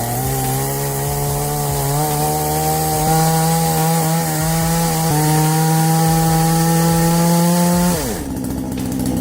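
Small two-stroke petrol engine of a chainsaw-type automatic tree-cutting saw running at full throttle. It revs up at the start, holds high revs with slight rises, and drops back toward idle about eight seconds in.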